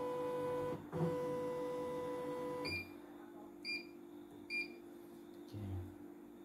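CNY E900 embroidery machine's motor-driven embroidery unit moving the hoop carriage with a steady whine, with a brief pause just before a second in, stopping after almost three seconds. Then the control panel gives three short beeps about a second apart as its buttons are pressed.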